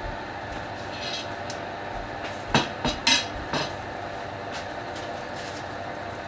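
A stick of butter sizzling steadily as it starts to melt in a hot nonstick frying pan, with a few sharp knocks between about two and a half and three and a half seconds in as the butter is pushed around the pan.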